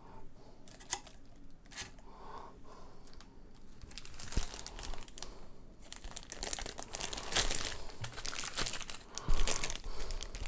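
Clear plastic packaging crinkling and rustling as the lamp parts are unwrapped and handled. A few light clicks come first, and from about four seconds in the crinkling grows dense and busy.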